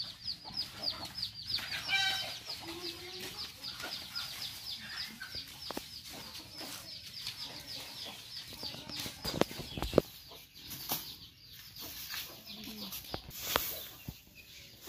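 A chicken clucking and squawking while it is handled, with a fast run of thin, high chirps, about five a second, that stops about two-thirds of the way through. A few sharp knocks come near the end.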